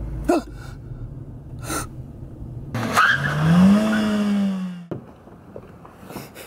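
A car braking hard with a tyre screech: a pitched squeal rising and then holding for about two seconds, starting about three seconds in and cutting off suddenly.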